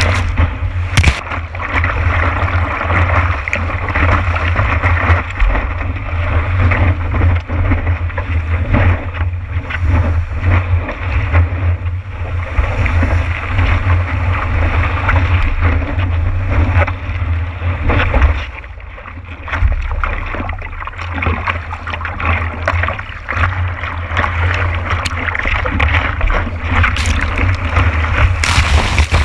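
Rushing, splashing whitewater of a breaking wave around a stand-up paddleboard's nose, with wind buffeting the board-mounted action camera's microphone as a heavy rumble. The noise eases briefly about two-thirds of the way through, then builds again.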